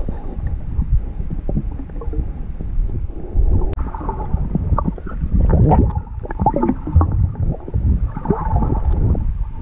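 Muffled underwater sound picked up through a waterproof action-camera housing: a steady low rumble of moving water with irregular knocks and clicks from the camera and hand moving close to the lake bottom, the knocks coming thicker in the second half.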